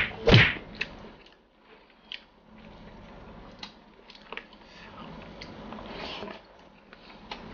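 Eating by hand: fingers working rice and beef rendang in a plastic tray, then biting and chewing, with scattered small clicks and smacks. Two loud, short bursts in the first half second stand out above the rest.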